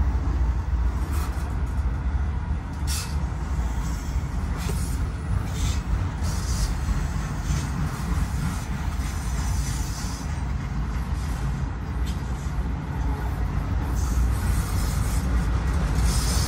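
Long freight train of autorack cars rolling past on the track: a steady low rumble of wheels on rail. Short high-pitched wheel squeals come through several times.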